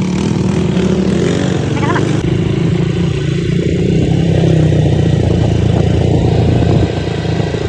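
ATV engine running steadily, with its note shifting a little as the quad is ridden.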